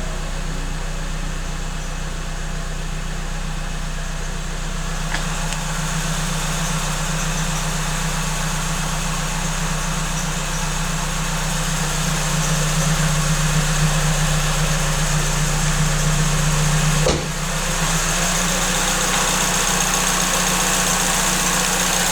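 Suzuki Swift Sport ZC31S's 1.6-litre four-cylinder engine idling with an aftermarket supercharger, its V-belt squeaking at the main pulley. The engine gets a little louder about halfway through, with a brief sharp break in the sound near the end.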